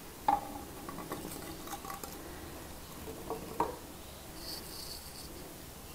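A granite sample on a string is lowered into a liquid-filled plastic graduated cylinder. A sharp knock near the start is the loudest sound, followed by faint clinks and a small splash about three and a half seconds in.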